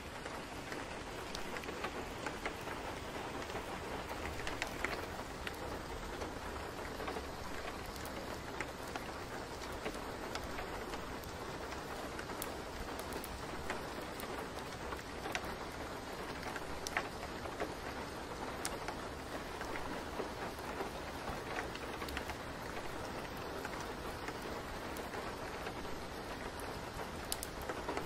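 Steady rainfall: an even hiss of rain with many small drops ticking through it.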